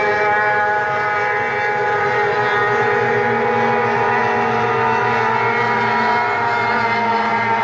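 Several racing hydroplane boat engines running flat out, a loud, steady drone of overlapping engine tones that drift slightly in pitch.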